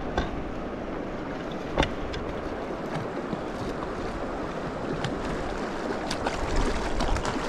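Steady rush of a flowing mountain river, with a few short sharp clicks: one about two seconds in and several more near the end.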